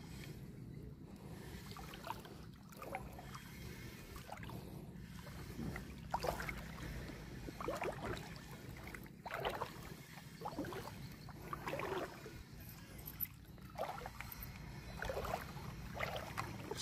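Small waves lapping and splashing at the water's edge in irregular bursts, over a faint steady low rumble.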